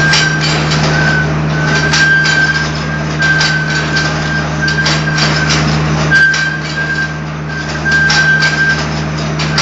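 Gabion (hexagonal wire netting) machine running: a steady low motor hum under irregular metallic clicking and clattering, with a high whine that cuts in and out about once a second.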